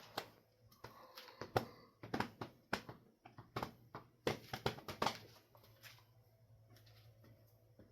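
Hampton Bay Quick Connect ceiling fan motor humming steadily on low speed. Irregular sharp clicks and knocks come often over the first five seconds or so, then thin out.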